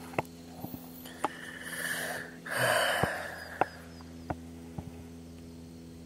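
Two soft breaths close to a body-worn camera's microphone, about a second and a half in and again near three seconds, over a steady low hum. Scattered faint clicks come from handling the fishing rod during the retrieve.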